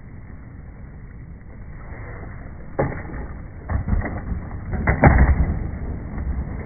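Skateboard wheels rolling on concrete with a low rumble, broken by sharp knocks and clacks as the board comes off the ramp. The loudest comes about five seconds in, as the board slaps down on landing, and then it rolls on.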